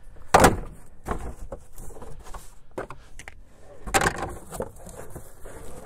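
A cardboard box and the parts going into it being handled: irregular rustling, scraping and light knocks, with two louder knocks or scrapes about half a second in and about four seconds in.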